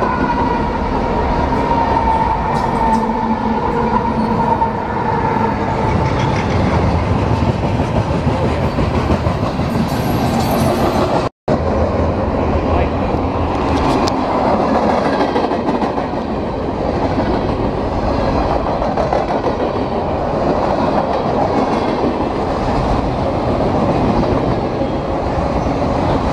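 Westbound train rolling slowly past close by: a steady, loud rumble and clatter of wheels on rail. A steady high tone fades out over the first several seconds, and the sound drops out completely for a moment about eleven seconds in.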